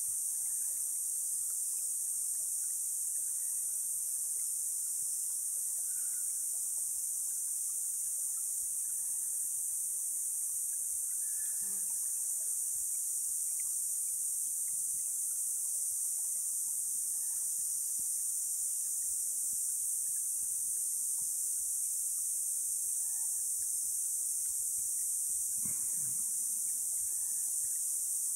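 Steady high-pitched chorus of insects trilling without a break.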